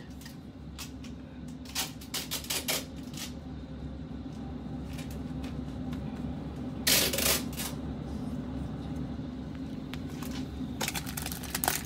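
Prizm basketball cards and a wrapped card pack being handled on a tabletop: scattered light clicks and taps, a brief rustle about seven seconds in, and denser crinkling and clicking near the end as a hand takes hold of the pack.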